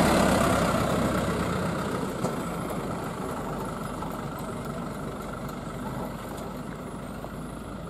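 Hino light box truck's diesel engine and tyres passing close and driving away up the road, the sound fading steadily as it goes.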